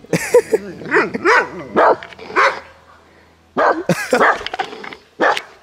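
A dog barking repeatedly in short barks, warning off a goat. It pauses about three seconds in, then barks again.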